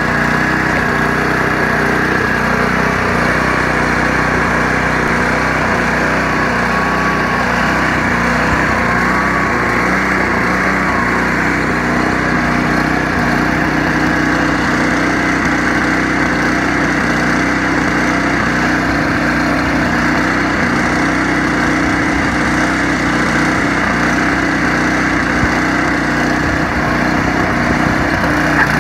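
2000 John Deere 724D two-stage snowblower's engine running steadily.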